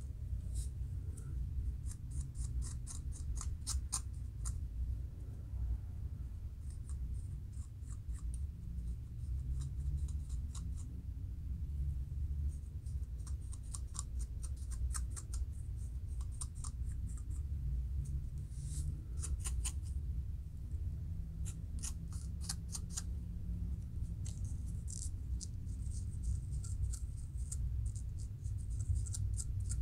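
Fingernails and a plastic comb scratching close over a dry, flaky scalp, lifting dandruff flakes: quick runs of fine scratchy strokes with short pauses between them, over a low steady hum.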